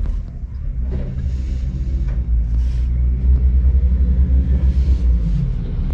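Diesel engine running with a deep, pulsing rumble that grows louder about three seconds in.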